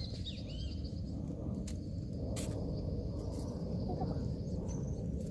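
Outdoor rural ambience: a steady low rumble with a thin, steady insect-like buzz that fades out about four seconds in. A few sharp clicks and small bird chirps come through near the end.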